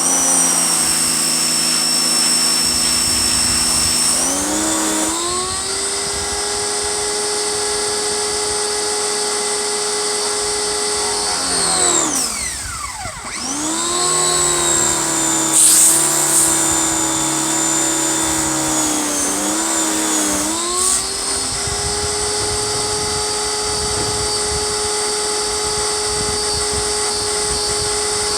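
Pressure washer running, its motor and pump giving a steady drone over the hiss of the spray. Its pitch steps up a few seconds in, dips sharply and comes back about halfway through, then steps up again.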